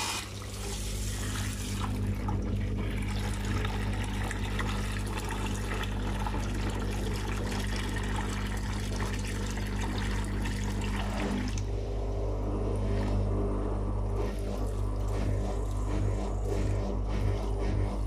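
Whirlpool FL 5065 washing machine draining: its pump hums steadily while soapy water gushes from the drain hose into a bucket. The hum changes about eleven and a half seconds in.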